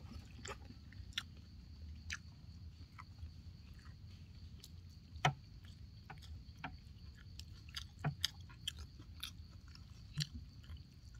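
A person eating rice noodle soup, chewing with scattered sharp clicks and taps of chopsticks and a metal spoon against a metal tray. The clicks are loudest about five, eight and ten seconds in.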